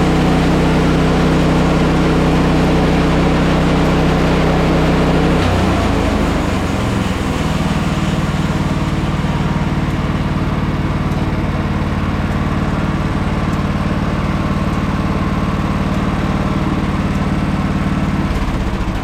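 The engine of a portable bandsaw sawmill running steadily under load while the blade cuts through a large log. About five seconds in, the engine note drops and wavers for a couple of seconds, then settles into a steady run again.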